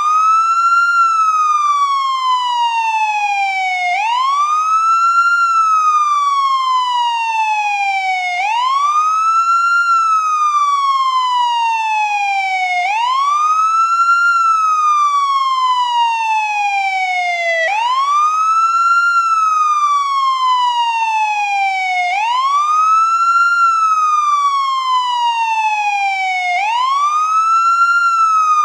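Ambulance wail siren, the traditional American kind, cycling steadily: each cycle rises quickly in about a second, then falls slowly over about three seconds, repeating roughly every four and a half seconds.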